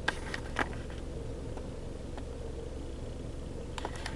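Low steady hum of a car idling, heard inside the cabin, with a few light clicks near the start and again near the end.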